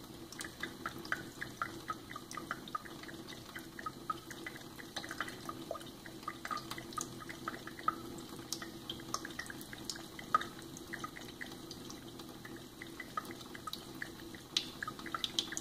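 Thin stream of water running from a kitchen faucet into a stainless steel sink while a tabby cat laps at it: a string of small wet ticks and drips, quickest in the first few seconds, over a faint steady flow.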